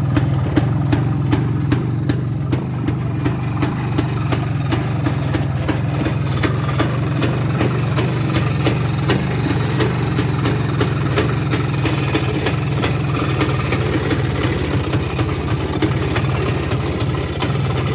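IZh two-stroke motorcycle engine idling steadily, with a sharp tick about twice a second.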